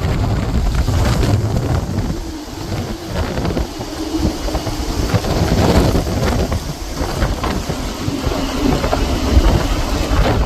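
Hurricane wind gusting hard and buffeting the microphone, with rain, the noise surging and easing from gust to gust.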